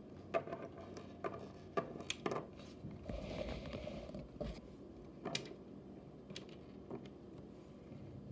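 Small plastic toy figures and playset pieces being handled and set down on a wooden table: a scatter of light clicks and taps, about a dozen in all, with a brief rustle around three seconds in.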